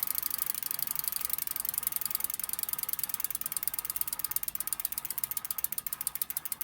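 Three-speed bicycle rear hub freewheeling: its pawls tick rapidly and evenly as the rear wheel spins, the ticks spacing out slightly near the end as the wheel slows.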